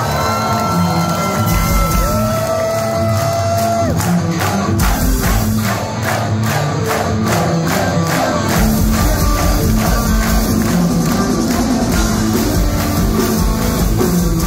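Live metal band playing at full volume through a club PA, with a crowd shouting along. Long held guitar and vocal notes open the passage. From about four seconds in the audience claps in time, about two to three claps a second, and then the full band with drums and bass crashes back in.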